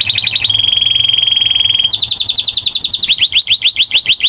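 Male canary singing: a continuous song of rapid repeated notes, the phrase changing every second or so. Quick notes give way to a fast rolling trill, then to runs of downward-sweeping notes at about eight a second.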